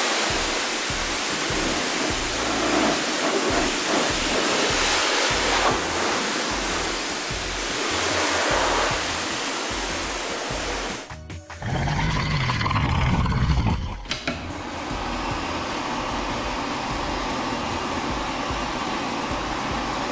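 Cartoon sound effects over background music: a long hissing, rushing blast fills the first half. It cuts out briefly about eleven seconds in, and a low rumble swells and fades before steadier music carries on.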